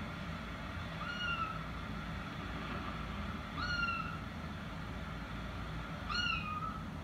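A kitten mewing three times, short high calls that rise and then fall, heard through a TV's speakers over a low steady hum.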